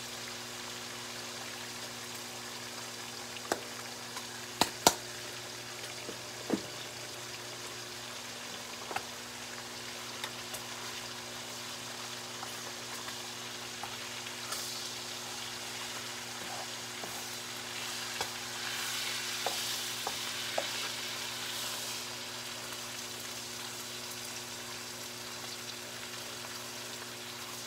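Bacon sizzling steadily as it fries in a skillet, with a few sharp clicks about five seconds in. The sizzle grows louder for a few seconds past the middle.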